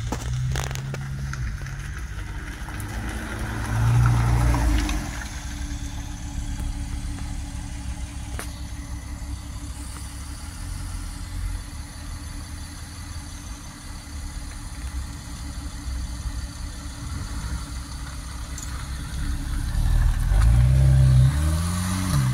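Porsche 911 flat-six engines running as the cars roll slowly past. The engine note swells and rises in pitch about four seconds in and again near the end, as the cars accelerate away.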